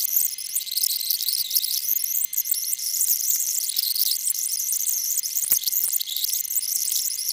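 Loud, high-pitched electronic hiss and crackle from a corrupted recording signal, with a thin steady whine and a faint hum under it. A few sharp clicks come through, one about three seconds in and two more a little past five seconds. No speech gets through the noise.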